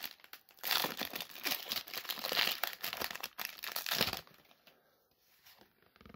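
Foil booster-pack wrapper being torn open and crinkled: a dense crackling rustle lasting about three and a half seconds, then dying down to a few faint rustles.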